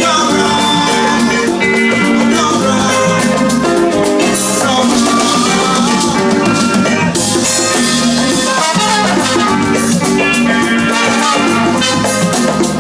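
Live band playing an Afrobeat-highlife number at full volume, drum kit and percussion driving a steady groove under several pitched instruments, during a sound check run-through.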